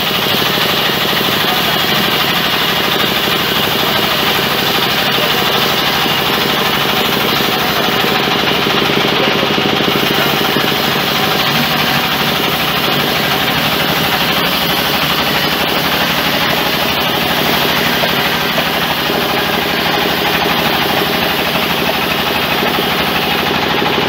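Large sawmill band saw running steadily as a big log is pushed through it on the carriage: a loud, even machine hum with several fixed pitches.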